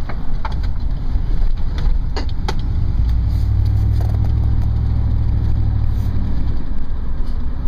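Car engine and road rumble inside a moving car. The low rumble grows louder for a few seconds from about three seconds in, with a few light clicks before it.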